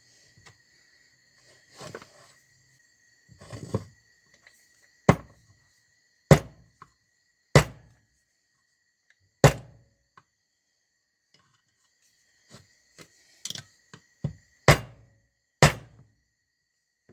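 Sharp knocks as polyurethane bushings are knocked into the clutch basket of a Honda Bros 150 engine. There are a few softer ones, then four loud ones about a second apart, then a quicker group near the end.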